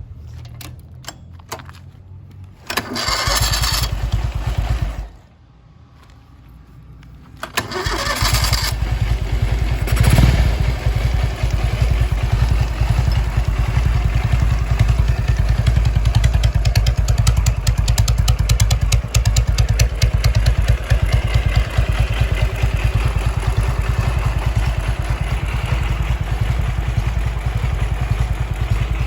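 Converted minicab engine on a custom motorcycle, breathing through a newly fitted exhaust. It is cranked about three seconds in for two seconds without staying running, then cranked again and catches near eight seconds. It revs up briefly around ten seconds, then idles steadily.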